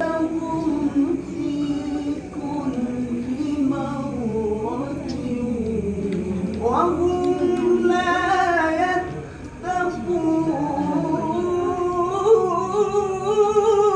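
Melodic Quran recitation (tilawah) sung in maqam Nahawand: long, ornamented phrases that glide up and down in pitch, with a short breath break a little past two-thirds of the way through.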